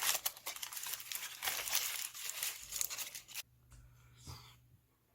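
Aluminium foil crinkling as it is unwrapped from baked food, a dense crackle that stops abruptly about three and a half seconds in, followed by a couple of faint rustles.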